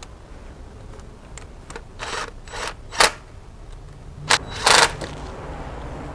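Hands handling tools or parts at the engine with it switched off: a few sharp clicks and scrapes, the loudest about three seconds in and a longer scrape near five seconds.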